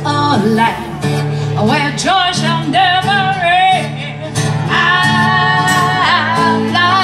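Live acoustic band played through PA speakers: strummed acoustic guitars under a singer who holds long notes with vibrato.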